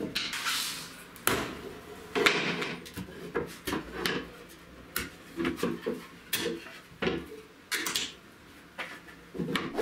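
Loose wooden strips knocking, clacking and scraping on a laminate panel as they are set down and shifted by hand: a string of irregular sharp knocks with a few short slides between them.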